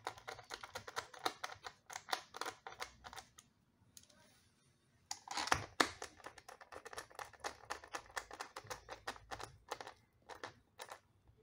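Rapid light clicks and taps of hands working on small computer parts, with a pause of about two seconds a few seconds in.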